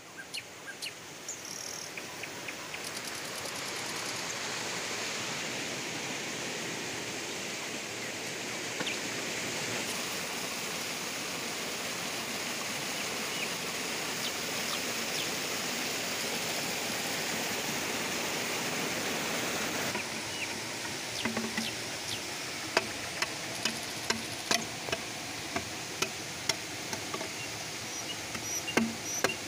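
Steady rush of a small river's flowing water. About two-thirds of the way in, a machete starts chopping a thick bamboo pole in a run of sharp knocks, roughly one or two a second.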